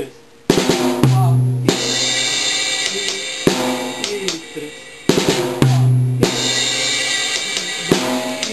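Acoustic drum kit playing a slow reggae rhythm variation on snare, tom and cymbal. Snare strokes lead to a deep tom hit, then a cymbal crash together with the snare rings on. The pattern is played twice.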